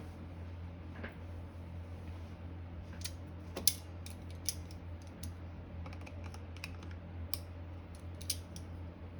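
Scattered light clicks and taps of tools and small metal motor parts being handled, the loudest about three and a half seconds in, over a steady low hum.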